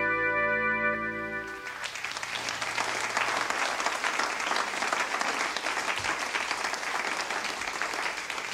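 A jazz band holds its closing chord, which cuts off sharply about two seconds in, and a club audience applauds.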